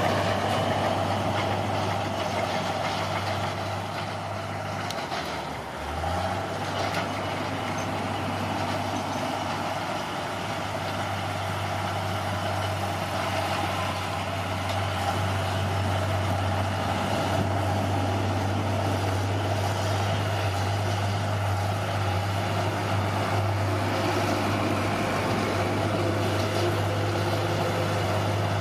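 Bulldozer's diesel engine running steadily, with a brief dip in its note about five seconds in.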